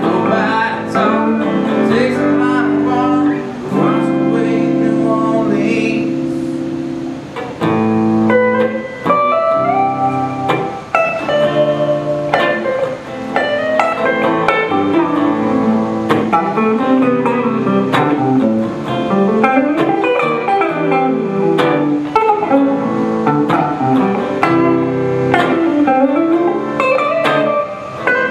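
Two electric guitars played live through amplifiers: held strummed chords, then a melodic single-note line moving over the chords for the rest of the passage.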